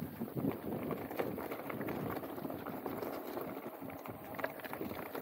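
Mountain bike rattling and clattering over a rough, rocky trail on a fast descent: a dense, irregular run of knocks from tyres, suspension and frame.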